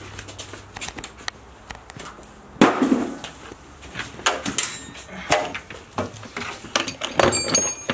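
Metal tools clattering and clinking in a rolling toolbox drawer of sockets and bits as someone rummages through it, with a loud clunk about two and a half seconds in.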